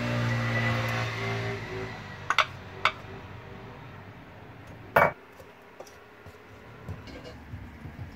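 A few sharp knocks and clinks of a cooking pot and utensils, the loudest about five seconds in, after a brief steady hum in the first two seconds.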